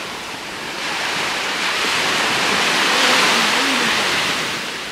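Small sea waves breaking and washing up on the shore, the surf swelling to a peak about three seconds in and then easing off.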